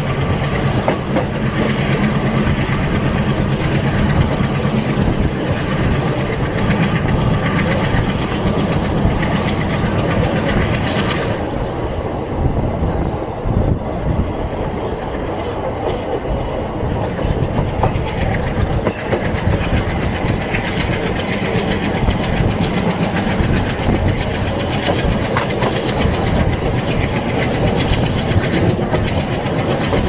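Passenger train hauled by an ALCo diesel locomotive, heard from a coach while running: wheels clattering over the rail joints under the steady note of the diesel engine. The sound dulls for several seconds about a third of the way in, then comes back.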